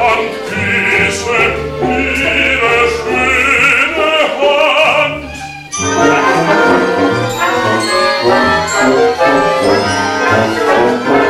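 Operatic singing with a small chamber orchestra in a live stage performance. The music dips briefly about six seconds in, then picks up in a busier passage of quick, short notes.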